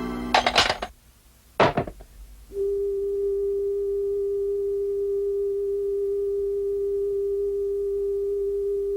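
Two short, sharp cartoon sound effects, then a steady electronic tone held at one pitch for about six seconds.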